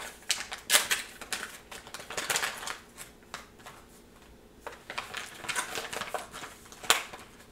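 Small craft supplies being handled and unwrapped on a wooden table: crinkling plastic packaging and light clicks and taps of small plastic items. The handling comes in irregular spurts with a lull in the middle and a sharp click near the end.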